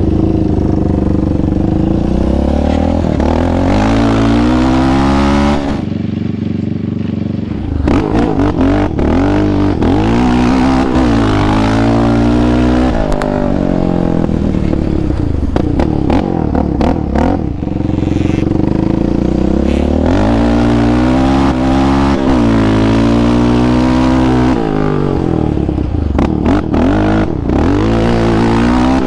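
Yamaha Raptor 700R quad's single-cylinder engine running hard on the throttle, its pitch climbing and dropping back again and again.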